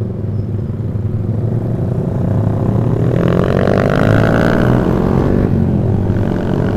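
Yamaha R15 V3's single-cylinder engine running through an aftermarket Proliner exhaust. It rises in pitch as the bike accelerates about halfway through, then eases off near the end.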